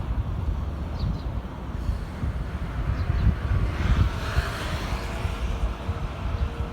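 Low, uneven rumble of a JR DE10 diesel-hydraulic locomotive and its train close by, with a faint steady tone coming in about five seconds in.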